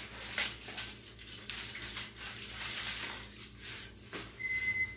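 Crumpled plastic bottle being twisted and squeezed in the hands, crackling and crinkling irregularly, with a sharper crackle about half a second in.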